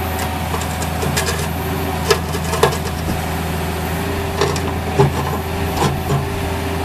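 Cat 305 mini excavator's diesel engine running steadily, with a steady whine over it and several short clanks and knocks from the machine.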